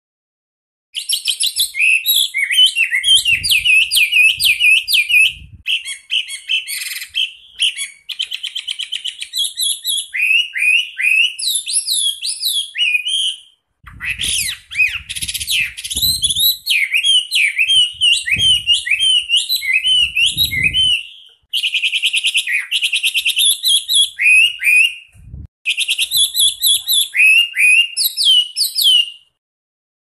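Chinese hwamei (wambi) singing a loud, fast song of rapid, sharp repeated notes and rolling trills, in several long phrases with brief pauses between them; it starts about a second in.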